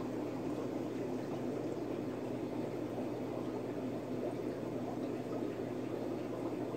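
Steady bubbling of aquarium aeration, air streaming up from a tube in the tank, over a low steady hum.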